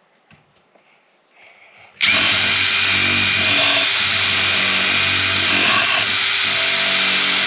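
Cordless impact driver hammering a long screw into a wooden 2x4. It starts abruptly about two seconds in and runs loud and steady.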